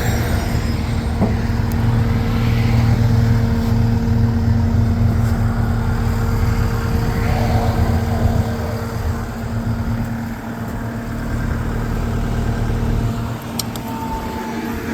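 New Holland L228 skid steer's diesel engine running steadily with a low hum, easing off a little about two-thirds of the way through.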